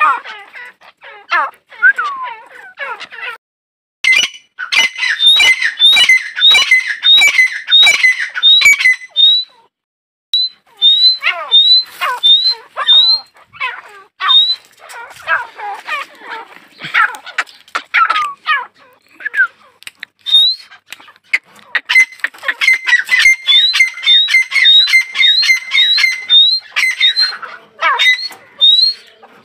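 Female grey francolin (teetar) calling: runs of short rising notes, about two a second, mixed with harsher squawking notes, with a few short pauses between runs.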